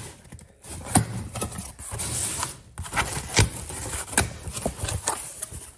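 Cardboard shipping box being torn open by hand: ripping and rustling cardboard with several irregular knocks as the box and its flaps are pulled about.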